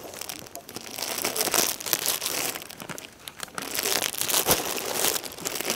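Irregular crinkling and rustling as new clothes are handled and pulled on.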